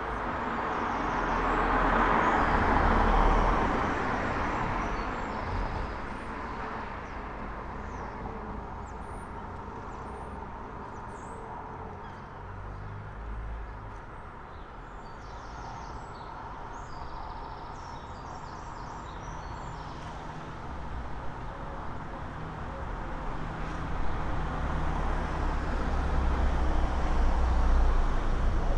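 Road traffic on a town street: a vehicle passes in the first few seconds, then a steady traffic hum with faint bird chirps, and a low rumble of a heavier vehicle builds toward the end.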